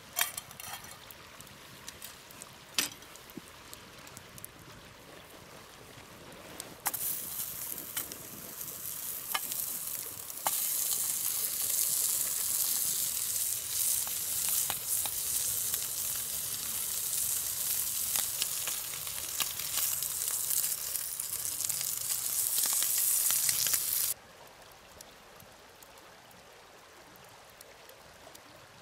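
Food sizzling and frying in a hot pan over a campfire, starting about a quarter of the way in, growing louder a few seconds later and stopping abruptly well before the end. A few sharp crackles come before it.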